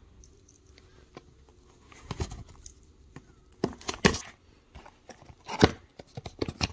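Hands handling a cardboard box on a wooden table and picking at the tape on its flap: scattered short scrapes, taps and rustles, the loudest a few sharp ones after the middle.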